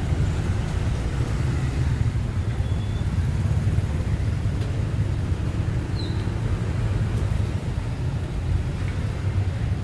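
Steady city street traffic noise: a continuous low rumble of passing vehicles.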